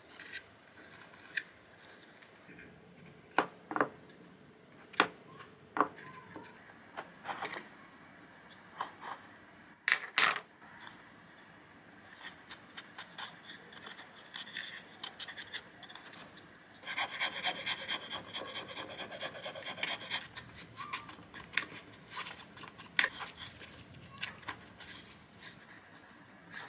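Hands working a small fabric-covered cardboard box: scattered sharp taps and clicks of card being pressed and fitted, with rubbing of fabric on card, and a few seconds of dense rapid scratching about two-thirds of the way through.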